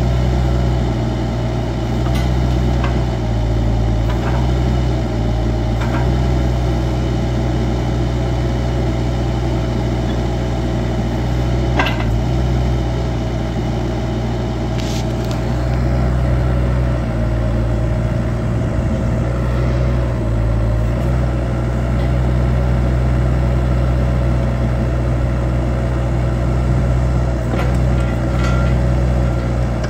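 Kubota KX155 mini excavator's diesel engine running steadily while the boom and arm are worked, with a few light clicks along the way.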